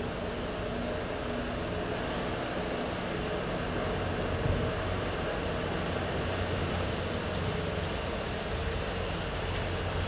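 Steady low rumble and hiss of background noise in a large indoor riding arena, with a few faint clicks in the second half.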